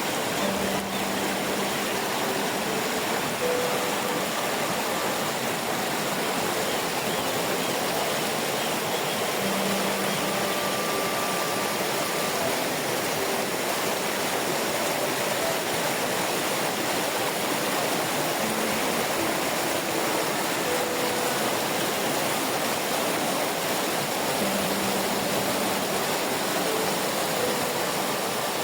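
Waterfall: water rushing and splashing in a steady, even roar of noise.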